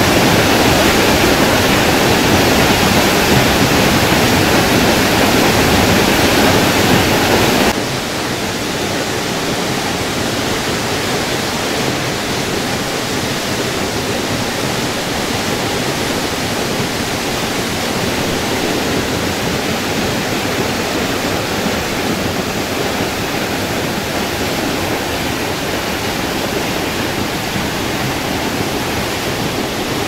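Waterfall: a steady, loud rush of falling water that steps down suddenly to a quieter, thinner rush about eight seconds in.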